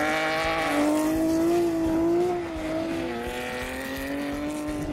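Race-car engine sound: a steady pitched drone that wavers slightly and dips a little about three seconds in.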